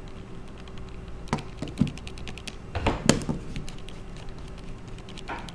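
Small scattered clicks and taps of a mini Phillips screwdriver working the camera screw inside an opened iPhone 3GS, with a few louder taps in the first half.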